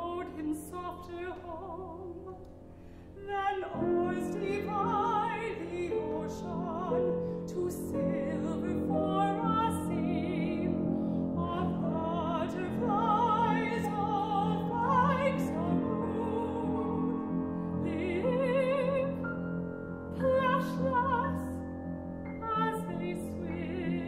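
A woman singing an art song in classical style with vibrato, accompanied by a grand piano; the piano comes in fuller about four seconds in.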